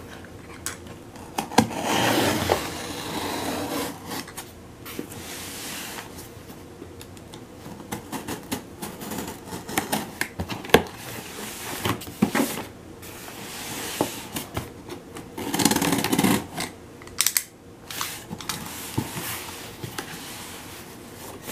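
Utility knife slitting the packing tape on a cardboard shipping box: scratchy scraping strokes with scattered clicks and knocks from the cardboard, the longest strokes about two seconds in and again about sixteen seconds in. Near the end the cardboard flaps are pulled open.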